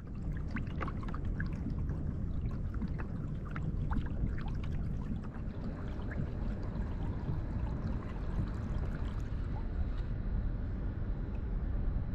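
Water lapping and sloshing against a fishing kayak's hull, with scattered small splashes and drips over a steady low rumble.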